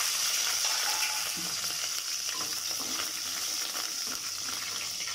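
Almonds and whole dried red chillies sizzling steadily in hot oil in a kadai, stirred with a spatula.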